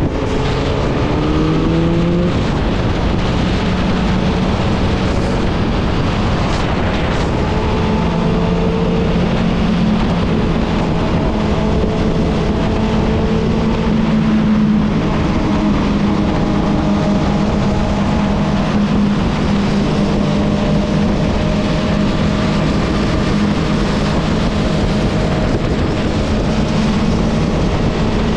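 Motorcycle engine under way, rising in pitch as it accelerates in the first couple of seconds, then running steadily at cruising speed, over constant wind rush.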